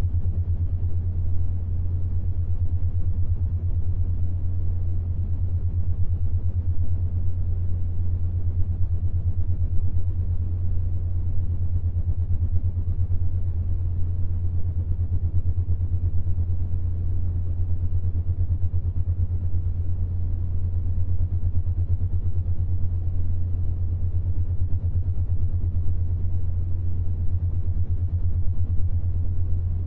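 Binaural-beat tone for the 7.83 Hz Schumann resonance: a steady low hum near 100 Hz that flutters quickly and evenly, over a soft noise underneath.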